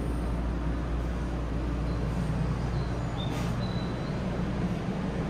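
Steady low rumble of a 500 series Shinkansen train running, heard from inside the car's vestibule.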